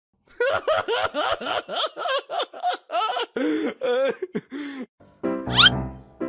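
A rapid run of short, high-pitched laughing syllables, about three a second, then a pause and a quick rising whistle-like sweep near the end.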